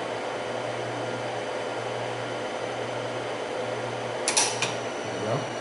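Steady whir and hum of the Xerox Alto and its Diablo cartridge disk drive running, the disk spinning with the heads loaded. Two or three short, sharp clicks come about four and a half seconds in.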